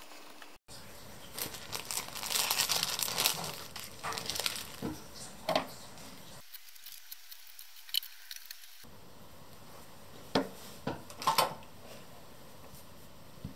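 Paper rustling and crinkling as an instruction sheet and a decal sheet are handled, followed by a few scattered light clicks and taps.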